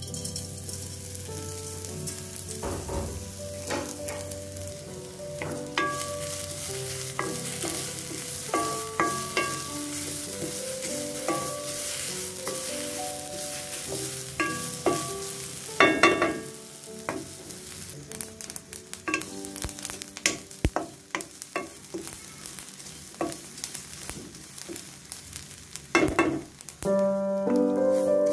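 Freshly washed sesame seeds sizzling as they dry-roast in a hot metal wok, stirred and scraped with a wooden spatula, with scattered small clicks from the seeds. There are two louder knocks, about midway and near the end.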